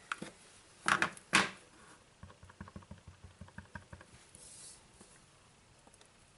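Clear acrylic stamp block tapped onto a plastic-cased ink pad to ink a rubber stamp: two sharper knocks about a second in, then a run of quick, faint taps for about two seconds.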